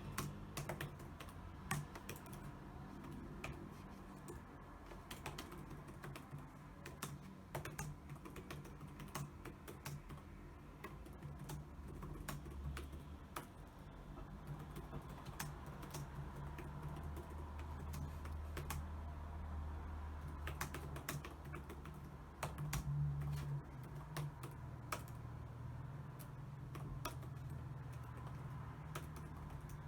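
Typing on a computer keyboard: a continuous stream of irregular key clicks, with a low steady hum underneath.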